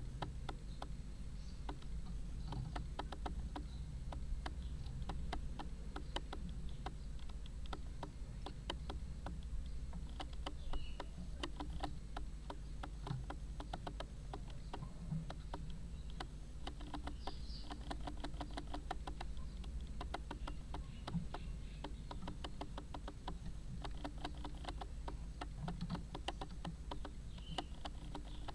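Camera autofocus clicking, several small irregular clicks a second as the camera hunts for focus, over a low steady hum.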